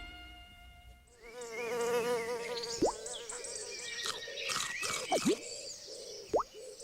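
A wavering, buzzing pitched tone begins about a second in, overlaid by several quick whistle-like swoops sliding up and down. It sounds like a cartoon-style sound effect.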